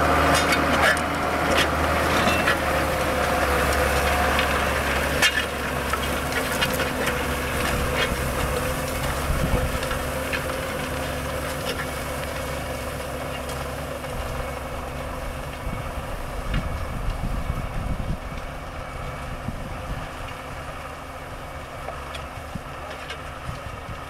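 Farm tractor's diesel engine running under load while pulling a disc harrow through soil, with clinks and rattles from the harrow, most of them in the first half. It is loudest near the start and grows gradually fainter as the tractor moves away.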